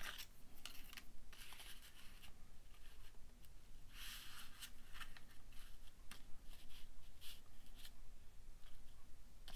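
Paper scraps being handled by hand: picked up, shifted and laid down on a pile of papers, giving intermittent light rustling with a few soft taps.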